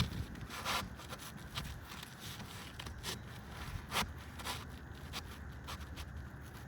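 Short, scattered scrapes and rubs of roof shingles being handled and worked into place, with a sharper scrape about four seconds in.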